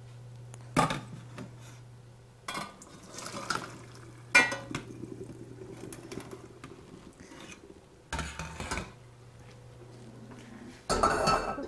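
Stainless steel saucepan clanking against a strainer and the sink, one clank ringing briefly, then a few seconds of hot water pouring out as steamed leeks are drained. More pot clatter follows near the end.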